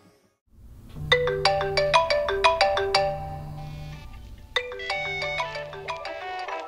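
Smartphone alarm going off: a bright, chiming melody of quick notes, repeating in phrases, starting about a second in. Under it the phone's vibration motor buzzes in three pulses of about a second each.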